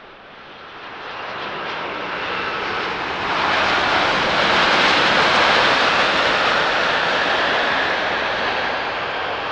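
Japan Airlines Boeing 787-8 with GEnx turbofan engines on its landing roll just after touchdown. The jet roar builds, swells sharply about three seconds in as the airliner passes close, then eases a little.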